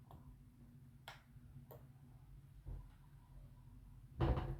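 A few faint, sharp, irregular clicks of watchmaker's tools against the pocket watch movement as a tight part is worked loose, then a brief louder noise near the end.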